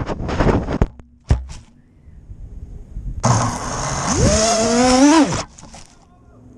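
An FPV quadcopter with Emax RS2206 1600 kV motors on a 6S battery crashes, its motor noise cut short by two hits about half a second apart. After a quiet pause its motors spin up on the ground with a rising whine for about two seconds, then cut off sharply. The crash follows one of its motors catching fire in flight.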